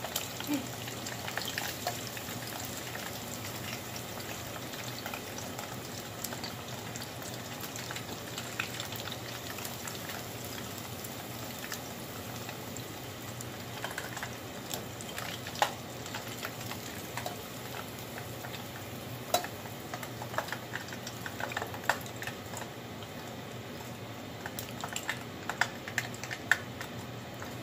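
Hot vegetable oil sizzling and bubbling steadily as panko-breaded shrimp deep-fry in a saucepan, with scattered sharp ticks, more of them in the second half.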